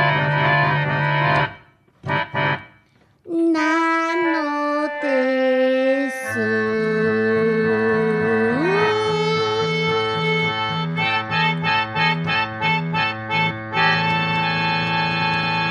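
Organ music played live: held chords over an alternating bass line, breaking off briefly near the start. Halfway through one held note slides upward, and later the chords turn into quick repeated short notes.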